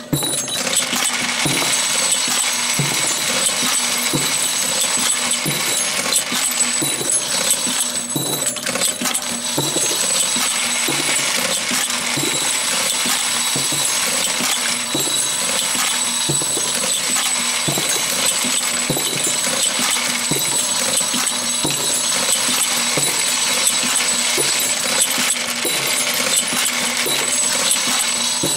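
Camdex 2300 Series pull-and-put ammunition machine running: its row of spring-loaded rams cycles rhythmically over brass cartridge cases, a steady mechanical clatter with metallic clinking of brass.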